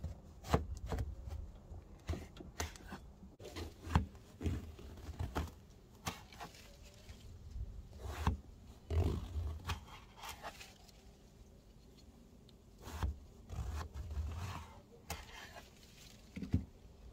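Kitchen knife slicing through whole eggplants on a wooden cutting board: scraping cuts through the skin and flesh, with irregular knocks as the blade and the eggplant hit the board.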